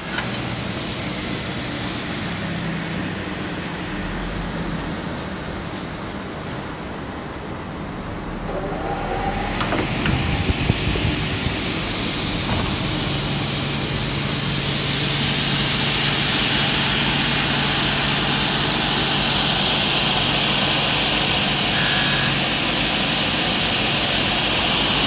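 Double-head aluminium cutting saw running: a steady machine noise that grows louder about ten seconds in as the saw heads run up, then holds steady with a low hum and a thin high whine.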